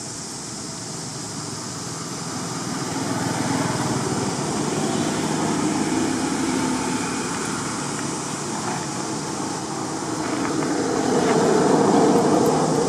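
A motor vehicle engine running steadily, growing louder about four seconds in and again near the end as it comes closer.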